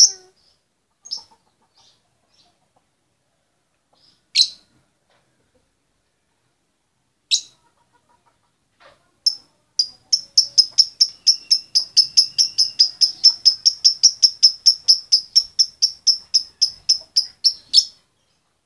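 Female lovebird calling for a mate. A few separate sharp, high chirps come first, then from about ten seconds in a fast, even run of chirps at about five a second for some eight seconds, which stops abruptly.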